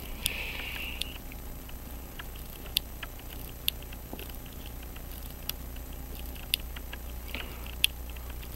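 Fingers handling a Hamilton 916 pocket watch and its case: scattered, irregular small clicks, with a short scratchy rasp near the start and a fainter one near the end.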